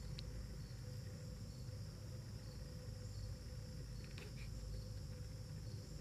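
Faint late-summer outdoor insect chorus: a steady high trill with a short high chirp repeating about every three-quarters of a second, over a low rumble.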